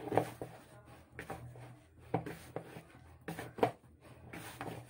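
Mandazi dough being kneaded by hand in a bowl: irregular soft knocks and rubbing as the hands press, fold and turn the dough against the bowl.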